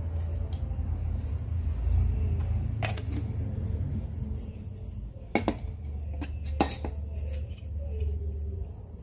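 Hard plastic parts of a gas-cylinder-shaped cigarette case being handled: light knocks and clicks as the pieces are fitted, moved and taken apart, with a few sharper clicks around the middle. A low steady hum runs underneath.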